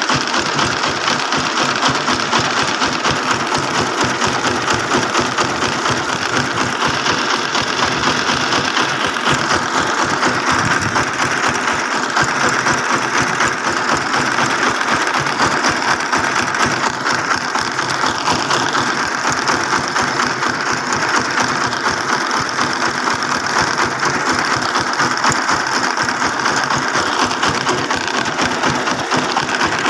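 Homemade farm truck's engine running steadily, with a fast, even chugging beat that does not rise or fall.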